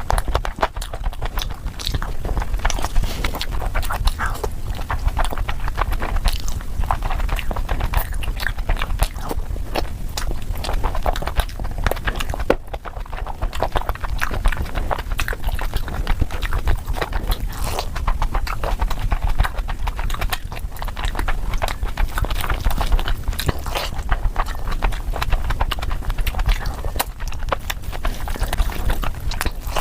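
Close-miked eating: continuous chewing with many quick wet clicks and smacks of the mouth, over a steady low rumble.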